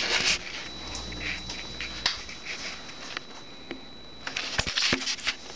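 Close handling noise from a hand-held camera: rustles and light clicks, thickest near the start and again about four and a half seconds in, over a faint steady high whine.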